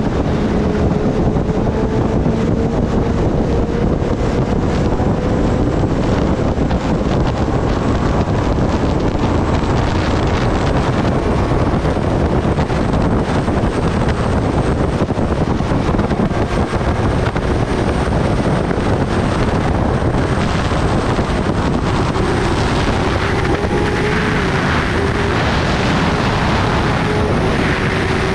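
Green Kawasaki sport bike cruising at highway speed: heavy wind rushing over the microphone, with the engine's steady tone underneath.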